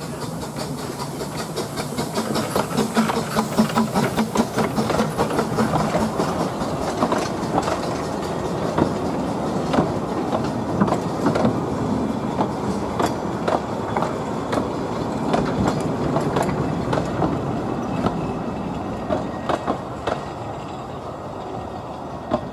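A small narrow-gauge 0-4-0 steam tank locomotive passes close by with its train. Its exhaust beats loudest in the first few seconds. Then the vintage carriages roll past with a run of sharp wheel clicks over the rail joints, fading as the train goes away.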